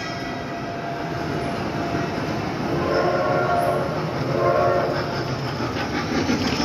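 Trackless Christmas road train, a steam-locomotive-styled ride vehicle, driving past close by over a steady running noise. It sounds two short horn toots, about three and four and a half seconds in.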